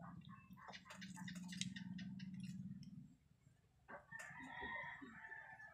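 Soft mouth clicks and smacks of someone eating, over a steady low hum in the first half. A rooster's drawn-out crow sounds in the background near the end.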